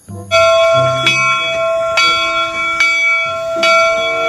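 Steam locomotive bell ringing in steady strokes a little under a second apart, each stroke ringing on and overlapping the next.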